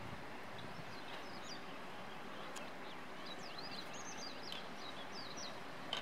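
Steady outdoor background noise with a small songbird's quick, high-pitched twittering song faintly over it, from about half a second in until near the end.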